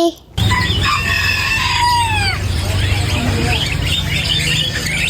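A rooster crows once, its drawn-out call falling in pitch at the end. Small caged songbirds then chirp over a steady low background hum.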